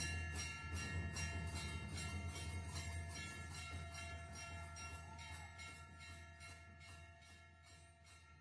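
Puja hand bell rung repeatedly, about three strikes a second, each stroke ringing on in steady overlapping tones; the ringing slowly grows fainter.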